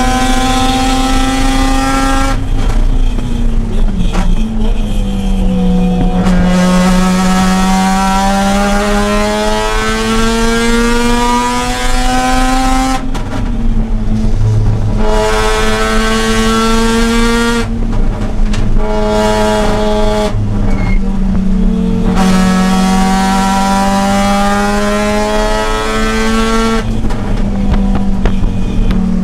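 Mazda RX-8's two-rotor rotary engine at race pace, its pitch climbing steadily under full throttle and then falling back several times as it comes off the throttle before climbing again.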